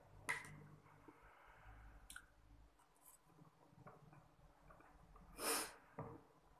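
Quiet eating sounds with a metal spoon and a tub of ice cream: a sharp click near the start and a few faint clicks, then one short, louder scrape about five and a half seconds in as the spoon digs a scoop out of the tub.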